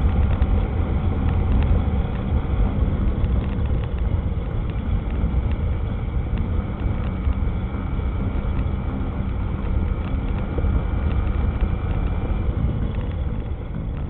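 Yamaha motorcycle riding steadily along a road: a continuous engine and road rumble with wind buffeting the microphone.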